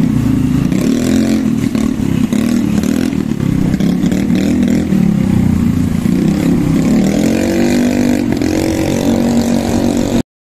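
Small motorbike engine running while riding, its pitch rising and falling with the throttle over a steady low rumble; the sound cuts off suddenly near the end.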